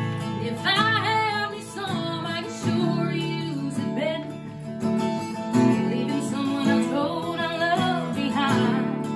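A singer performing a song to a strummed acoustic guitar.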